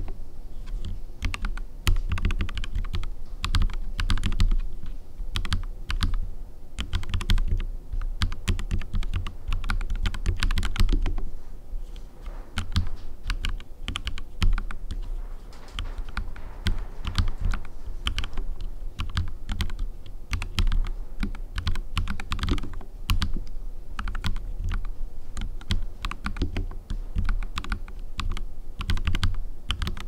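Fast, continuous typing on a NuPhy Halo75 mechanical keyboard fitted with NuPhy NightBreeze linear switches and PBT double-shot keycaps: a dense run of keystroke clacks, thinning out briefly about twelve seconds in.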